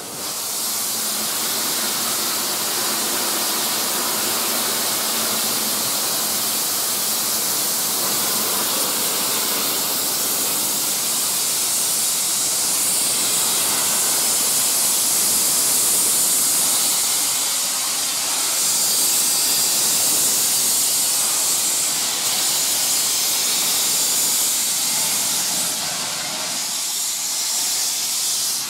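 Steady, loud hiss of steam escaping from the Bulleid Battle of Britain class steam locomotive No. 34072, without exhaust beats.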